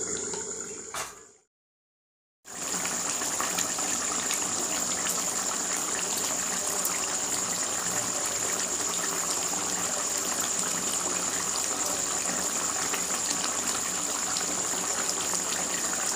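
A short knock about a second in as the aluminium lid goes onto the kadai, then a second of dead silence. After that, chicken and potato curry simmering in the open kadai on a gas stove: a steady bubbling hiss.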